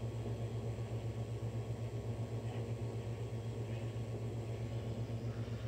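Steady low machine hum with a faint, even pulsing, like fans or a power supply running.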